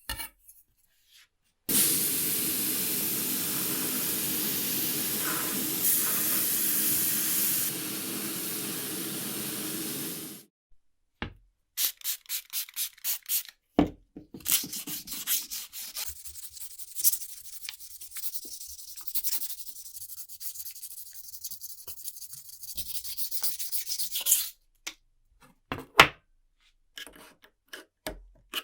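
A small power tool runs steadily with a low hum for about eight seconds and then stops. After that comes a quick run of evenly spaced clicks, then a long stretch of hand rubbing or sanding strokes.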